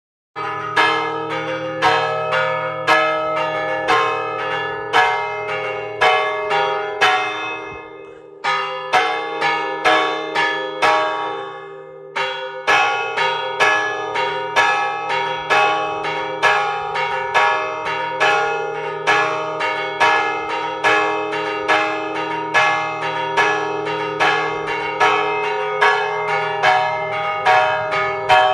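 Church bells pealing, struck about once a second with the tones ringing on between strikes. The ringing fades and pauses about eight seconds in, then resumes about four seconds later.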